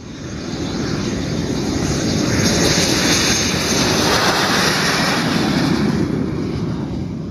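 Fouga CM.170 Magister's twin Turbomeca Marboré turbojets at high power as the jet rolls down the runway for takeoff: a loud jet roar with a high whine that builds as it passes and eases a little as it moves away.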